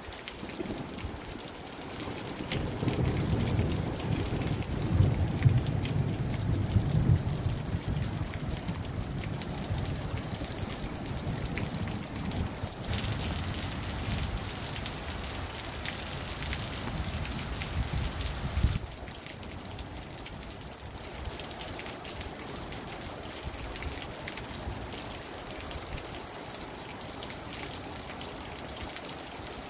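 Steady rain falling, with a long low rumble of thunder rolling in from about two seconds in, loudest around five to seven seconds, that cuts off abruptly after about eighteen seconds, leaving only the rain.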